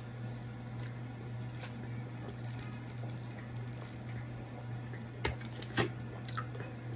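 A person drinking carbonated soda from a plastic bottle: quiet swallowing over a steady low hum, with a couple of sharp clicks a little after five seconds in.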